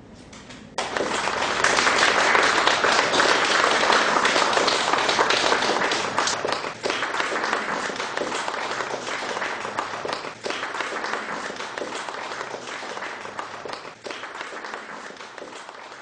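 Audience applauding, breaking out about a second in, strongest over the next few seconds and slowly dying away.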